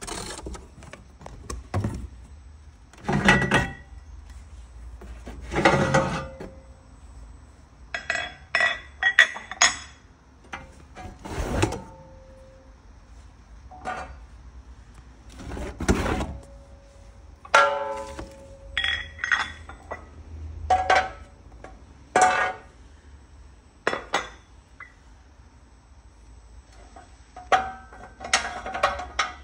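Red steel ratchet jack stands being handled in and out of their cardboard boxes: a long series of irregular metallic clanks, clinks and knocks, some ringing briefly.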